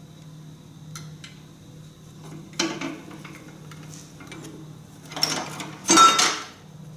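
Metal tractor parts and hand tools clinking and clattering as a component is worked loose and removed, over a steady low hum. The loudest moment is a ringing metallic clank about six seconds in.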